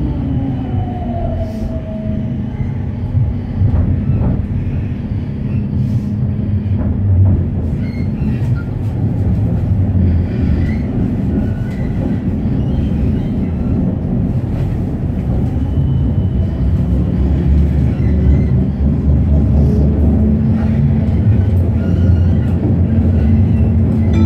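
Tram running along its rails, heard from inside the car: a steady low rumble of wheels and traction motors, with scattered clicks and a short falling whine near the start.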